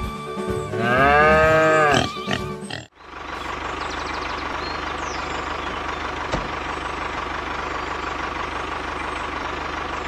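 A farm animal's drawn-out call, its pitch rising then falling, in the first two seconds; then, after a sudden cut about three seconds in, a tractor engine running steadily.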